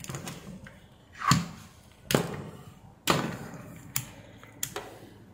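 A handful of sharp knocks and clicks from a digital multimeter being handled on a workbench: the meter is moved and set down, and its rotary selector switch is clicked round. The louder knocks come about a second, two seconds and three seconds in, and lighter clicks follow near the end.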